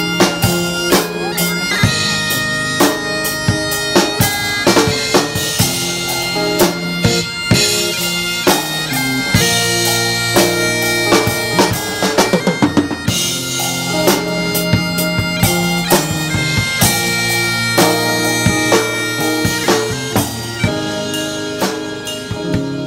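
Bagpipes with drums: the steady drone of the pipes under a stepping melody, over a driving drum beat, with a quick drum roll about halfway.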